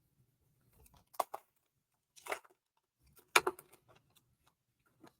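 A few short taps and rustles of trading cards being handled and set down, four or five in all, the sharpest about three and a half seconds in.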